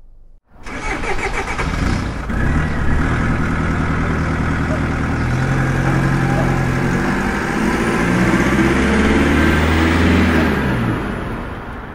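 Truck engine starting and running, its pitch rising and falling as it revs, then fading out near the end.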